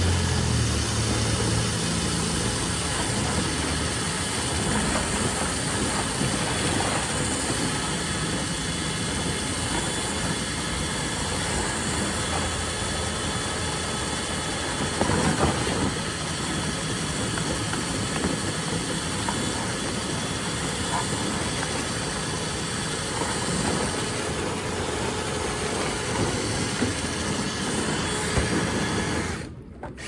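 Drill-driven rotary dryer-vent brush on a flexible rod, spinning inside the dryer duct and scrubbing out lint in a steady whir. It stops abruptly near the end.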